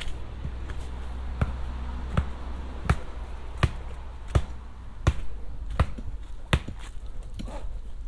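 A hiker's footsteps climbing a steep dirt trail covered in fallen leaves: a steady thud of each step about every three-quarters of a second, over a low rumble.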